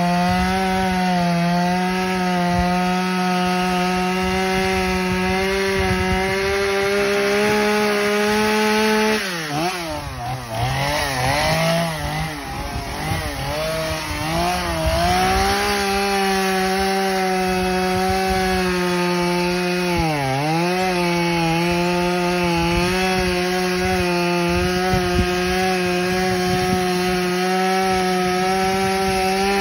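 Small chainsaw running at high speed while cutting tree branches, with a steady high-pitched motor tone. Its pitch wavers and sags between about nine and sixteen seconds in, and dips sharply once around twenty seconds before returning to full speed.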